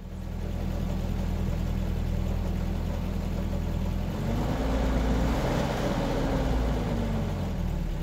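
Motor vehicle engine running steadily. About halfway through it rises in pitch and loudness, as if revved or pulling away, then settles back down near the end.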